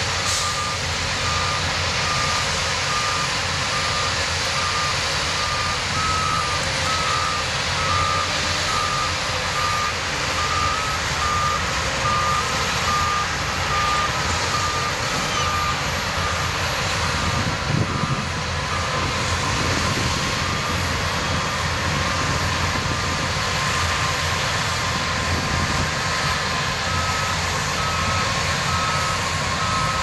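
Back-up alarms beeping steadily at an even pace over the running diesel engines of crawler bulldozers and a dump truck. A second alarm at a slightly higher pitch beeps alongside at times.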